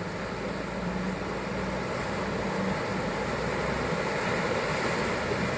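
Off-road vehicle driving on a trail, its engine running with a steady low drone over rumbling noise that grows slightly louder.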